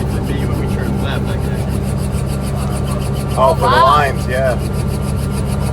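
Helicopter cabin noise: a steady low engine and rotor hum with a fast, even pulsing from the rotor blades. A voice is heard briefly about three and a half seconds in.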